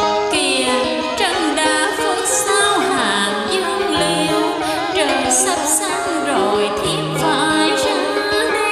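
Vietnamese cải lương music: a woman's voice singing with heavy vibrato over a plucked-string accompaniment.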